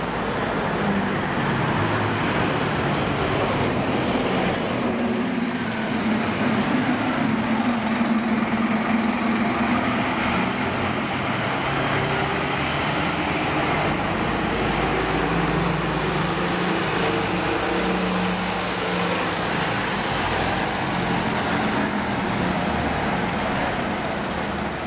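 Diesel buses and a coach running in the street, their engines idling and pulling away, with the engine note rising and falling.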